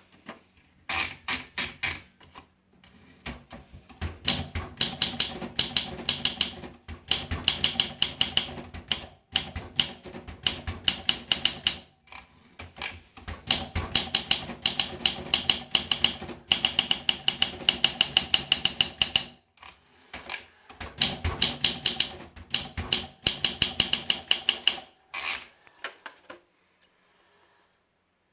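Olympia SM4 Deluxe manual portable typewriter being typed on: runs of rapid keystrokes in bursts of a few seconds with short pauses between them, stopping near the end.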